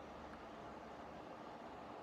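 Faint, steady background hiss: room tone with no distinct sound.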